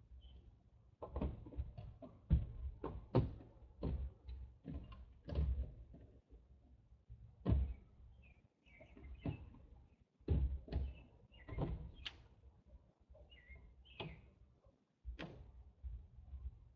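Hands and rope handled quickly on a tabletop while tying knots against the clock: irregular knocks and thumps, roughly one or two a second, as hands and rope hit the table, with short pauses between.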